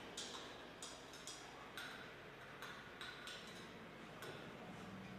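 A metal spoon clinking lightly against a glass beaker as salt is stirred into water to dissolve it: faint, irregular clicks about twice a second.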